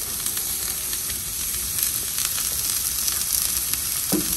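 Diced sweet potatoes sizzling in oil on a hot cast-iron flat-top griddle as they are tipped onto it, a steady hiss with scattered crackles and pops.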